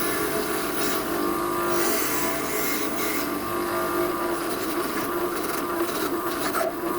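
Angle grinder running against steel: a steady, loud grinding whine with a rasping noise, as the zinc plating is ground off the nuts.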